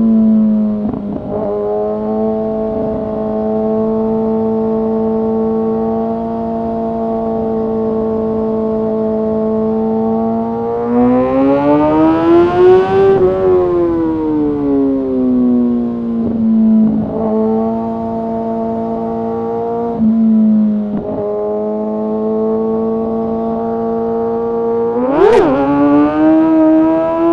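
Kawasaki ZX-6R inline-four engine and exhaust under way, mostly holding a steady pitch. Midway the revs climb and fall back once, with a few brief dips. Near the end there is one sharp rev up and down, then the revs climb again.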